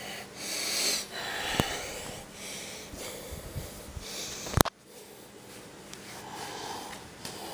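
Breathy noise and rustling close to the microphone as the camera is handled and swung about, with a small click about one and a half seconds in and a sharp, loud click a little after four and a half seconds.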